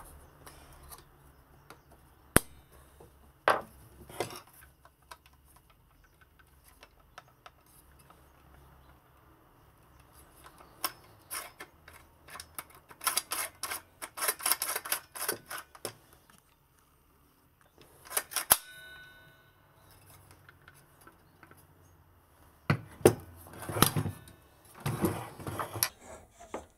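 Hands working on a Makita cordless circular saw's plastic and metal parts: scattered sharp clicks and knocks, with bursts of clattering and rattling about halfway through and again near the end. One click about two-thirds through is followed by a brief metallic ring.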